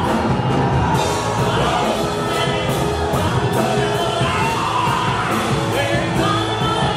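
Live worship band playing, with drums, bass and electric guitar under singers on microphones; the cymbals and drums keep a regular beat.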